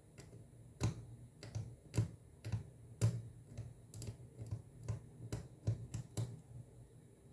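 Irregular small clicks and taps, about a dozen, of a hand tool working a bit of oxidized metal clean so it will take solder, over a low steady hum.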